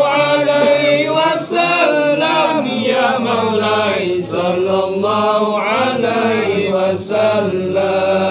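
A zikir group chanting selawat and zikir together in unison, with long held melodic lines and brief pauses for breath.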